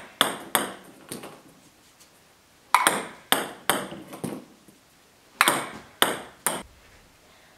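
Ping-pong ball being served with a chopping underspin stroke, heard as sets of three sharp clicks about half a second apart: the paddle strike, then a bounce on each side of the table. It happens twice in full, after the last bounces of a serve right at the start.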